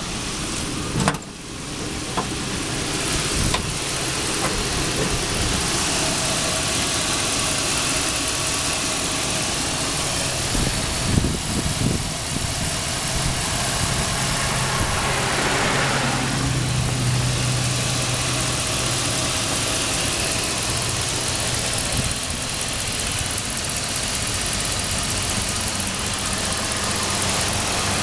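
A 2004 Dodge Ram 1500's 5.7 L Hemi V8 idling steadily, heard from the open engine bay, with a sharp knock about a second in.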